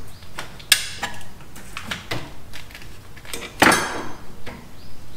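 Light metal clinks and knocks as a freed clutch cable is handled and pushed up against the underside of a car, with two sharper clanks, one just under a second in and one a little past halfway.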